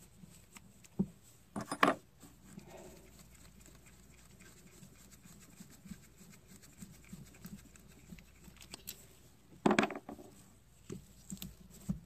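Light clicks and scrapes of hand work on an ignition coil: an Allen wrench backing out the coil's hold-down screw, then the coil being worked out of its spark plug well. Two louder clacks stand out, one about two seconds in and another near the end.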